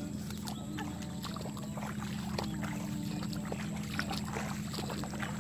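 Steady low drone of an engine running unseen, with light splashes, drips and rustles as rice seedlings are pulled and handled in muddy paddy water.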